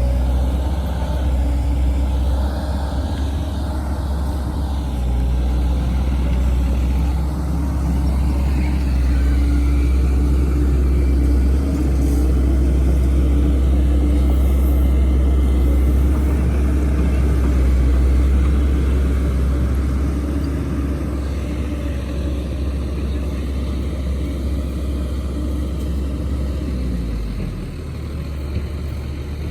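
Heavy diesel engine of earthmoving machinery running steadily with a deep rumble. Near the end it eases off, dropping in pitch and level.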